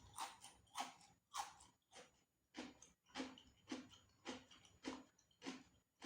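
Close-miked chewing of crunchy food. It is a steady run of crisp crunches, about one every 0.6 seconds.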